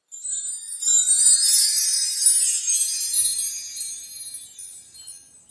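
A bright, high, shimmering chime-like sparkle sound effect with a jingle-bell quality, starting suddenly and fading away over about five seconds.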